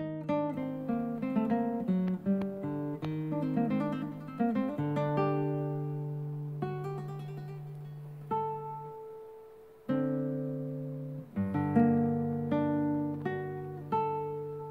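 Background music of an acoustic guitar: plucked notes and chords, each ringing out and fading, in an unhurried pattern.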